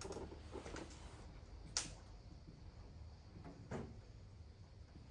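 Faint, short scratching strokes of a formula being written out: a few small ones at first, the sharpest about two seconds in and another near four seconds, over a low steady room hum.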